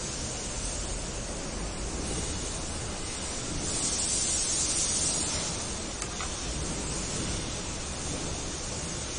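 Steady hiss of background noise, growing a little louder and brighter for about two seconds near the middle.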